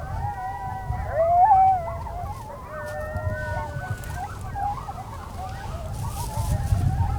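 A pack of coyotes howling and yipping, several voices overlapping in wavering, gliding calls, loudest about a second and a half in.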